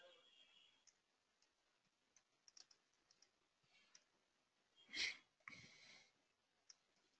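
Near silence with a few faint, scattered computer-keyboard keystrokes, and one louder short sound about five seconds in.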